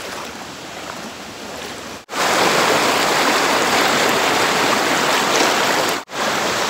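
Muddy floodwater rushing fast across a road, a steady rushing of water. It is moderate at first, then much louder from about two seconds in, with a brief break near the end.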